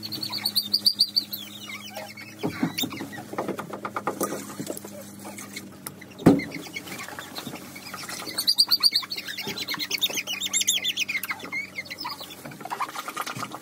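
German Shorthaired Pointer puppy squealing and whimpering in high, warbling cries while its claws are being clipped, in two bursts near the start and again after about eight seconds. A single sharp click about six seconds in.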